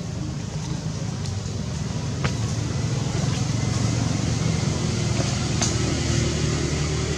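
A steady low engine rumble that grows slightly louder partway through, with a few faint clicks.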